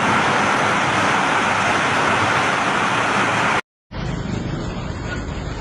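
Heavy rain pouring with a steady, even hiss. About three and a half seconds in there is a brief dropout, then a duller, lower rushing noise from another clip of the storm.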